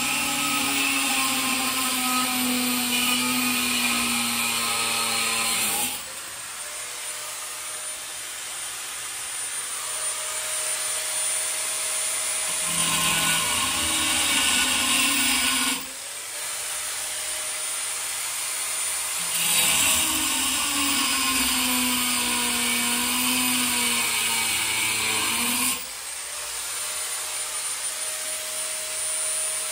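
Angle grinder cutting a 1095/15N20 Damascus steel blank in three long bouts, each a loud grinding hiss with the motor's pitch sagging under load. Between cuts the grinder runs free and quieter, its whine climbing back up.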